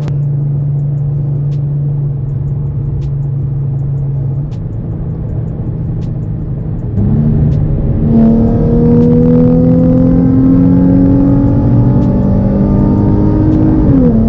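Nissan 350Z's VQ35 V6 heard from inside the cabin, breathing through aftermarket headers, test pipes and a single exhaust. It first drones steadily at cruise. About seven seconds in the throttle opens, and the note gets louder and climbs slowly in pitch until it drops near the end.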